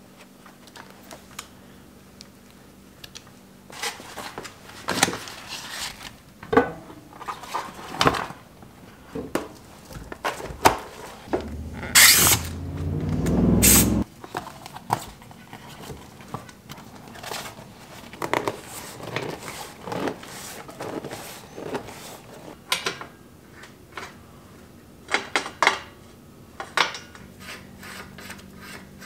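Bicycle parts and hand tools being handled on a workbench: scattered clicks, knocks and scrapes from working a shifter and cable, fitting a tyre onto a wheel, and threading a bottom-bracket facing tool into the frame. About halfway through, a loud rushing noise builds for about two seconds and cuts off suddenly.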